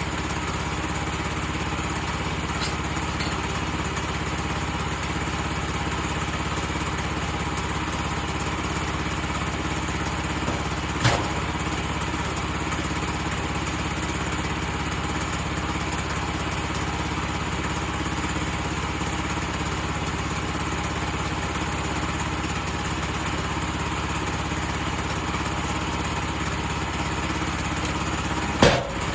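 Sawmill engine running steadily at an even pitch, with a sharp knock about a third of the way through and a louder one near the end.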